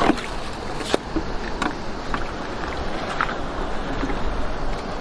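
Steady wind rumbling on the microphone over the wash of the sea on a rocky shore. A few sharp clicks and knocks come from stones and shells being shifted by hand, the loudest near the start and again about a second in.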